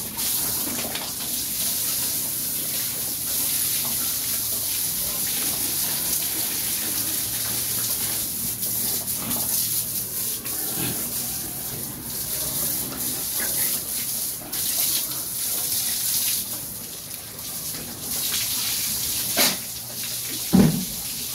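A steady hiss of water from a hose spraying over pigs and the wet concrete floor of their pen. Near the end a few short, louder grunts from the pigs break in.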